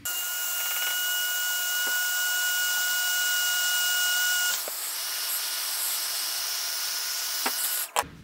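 Heat gun running, a steady rush of blown air with a thin high motor whine, shrinking heat-shrink tubing over a capacitor bank's leads. The whine drops out a little over halfway through and the gun cuts off abruptly near the end.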